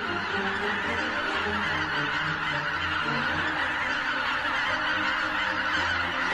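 A huge flock of wild geese calling together: a dense, steady din of many overlapping honks with no pauses.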